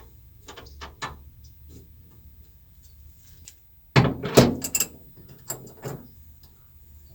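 Seat belt hardware being handled: sharp clicks early on, then a loud sudden metallic clatter about four seconds in that rings for about a second, followed by a few more clicks.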